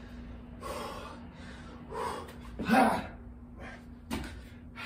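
A man breathing hard and winded between burpees: several loud, ragged exhales and gasps, the loudest a voiced grunt about three seconds in. A short thud comes about four seconds in as he drops his hands to the ground.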